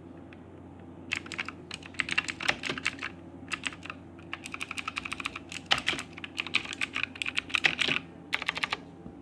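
Typing on a Motospeed Inflictor mechanical keyboard: fast runs of sharp key clicks starting about a second in, broken by short pauses, stopping shortly before the end.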